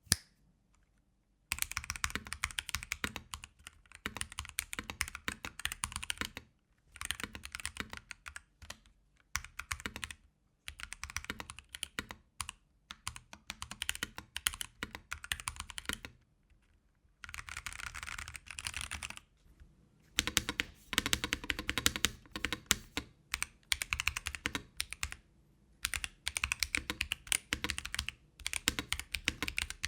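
Mechanical keyboard fitted with AKKO tactile switches being typed on in bursts of rapid keystrokes, with short pauses between bursts.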